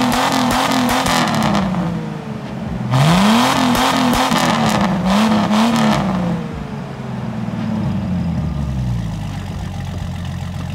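Jeep Cherokee XJ engine revved in quick repeated blips, dropping back between them, then revved again about three seconds in. It winds down after about six seconds and settles into a steady idle near the end.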